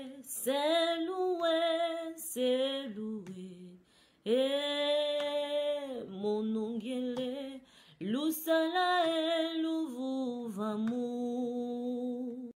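A solo voice singing a slow melody unaccompanied, in long held notes and short gliding phrases, with brief pauses about four seconds in and again near eight seconds.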